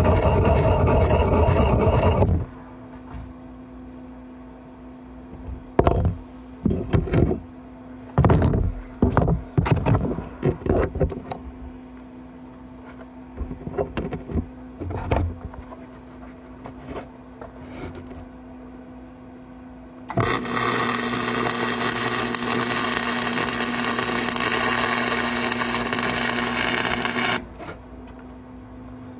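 Welding: a loud stretch of arc crackle and hiss lasting about seven seconds in the second half, over a steady electrical hum. A loud burst of noise cuts off about two seconds in, and scattered clanks and scrapes of metal being handled fall in between.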